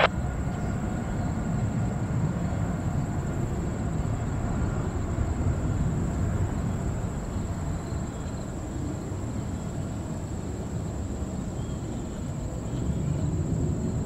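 Low, steady rumble of jet airliner engines, easing a little midway and swelling again near the end.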